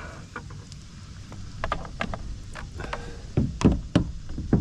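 Crab-trap rope hauled hand over hand over the side of a plastic kayak, knocking and rubbing against the hull: scattered light clicks, then several louder thumps in the last second and a half.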